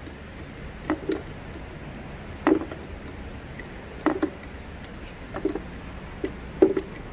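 Tools and small metal parts knocked and set down on a workbench during a repair: about six short knocks and clicks, several of them doubled, at uneven intervals of a second or two.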